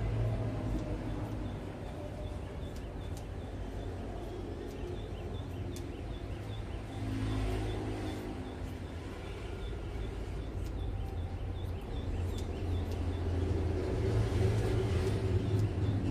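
Steady low background rumble that swells around the middle and again near the end, with faint sharp clicks of grooming scissors snipping a poodle's curly coat.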